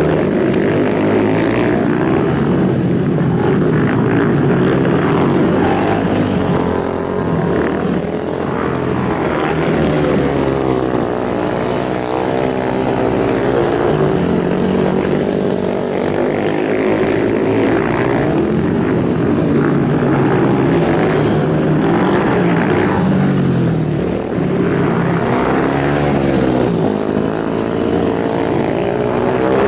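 Several motorcycle engines running hard, their pitch rising and falling over and over as they rev and pass.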